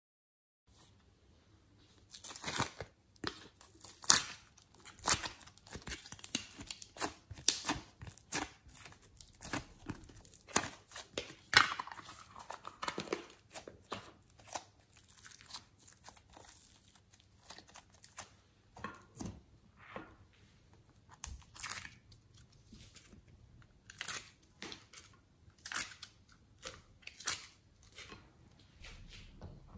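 Hands handling thin plastic cups and packaging, with irregular crinkling and tearing crackles and a few louder snaps, as slime and squishy toys are pressed and dropped into a glass tray.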